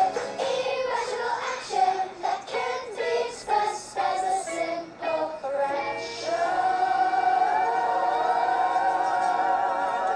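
Music with a singing voice: a run of short sung notes, then a long held note with vibrato from about six seconds in that stops near the end.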